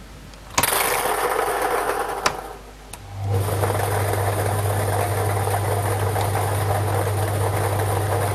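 Lottery ball draw machine starting up: a burst of noise about half a second in that fades away, then from about three seconds its motor runs with a steady low hum under the busy noise of the balls being mixed.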